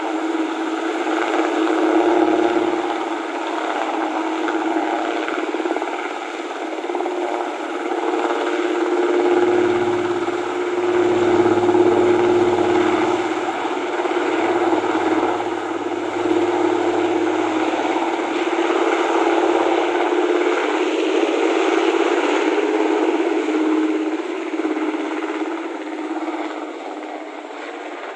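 Helicopter taking off: a steady, loud rotor and engine noise with a strong hum, getting fainter over the last few seconds as it flies away.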